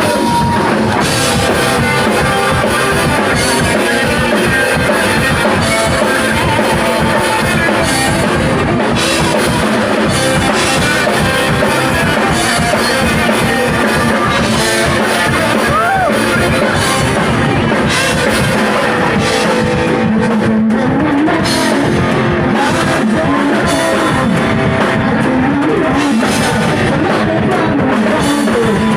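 Rock band playing live: a drum kit and guitars going at a steady beat, loud and continuous.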